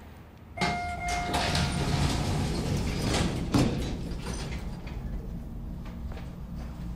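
Elevator sounds: a short chime about half a second in, then the elevator doors sliding and the car's steady low hum.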